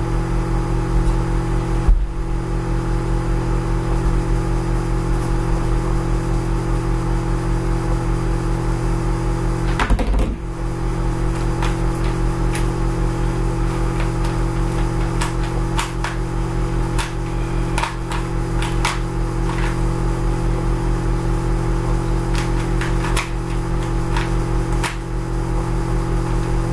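Loud steady electrical hum with even low pitch lines. Over it are scattered plastic clicks and clacks of a 3x3 Rubik's Cube being turned in the hands, coming more often in the second half.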